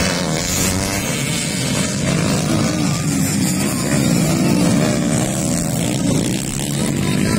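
Several dirt bike engines racing past on a grasstrack at high revs, with their pitches wavering and overlapping as the riders rev through the run.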